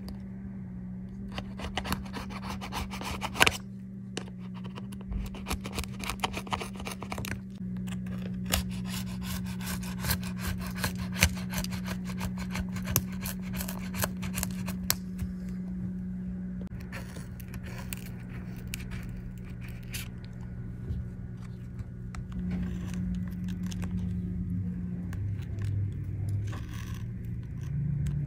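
A metal pry tool scraping and prying at adhesive inside an opened iPad, in quick, scratchy strokes with small clicks. A steady low hum runs underneath.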